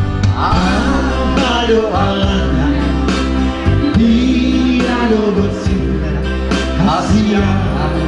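Music: a song with a sung melody over guitar and a steady bass line.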